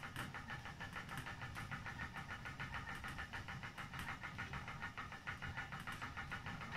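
Hand-cranked yarn ball winder being turned steadily, its gears giving a continuous whirr of fast, even clicks as yarn winds onto the ball.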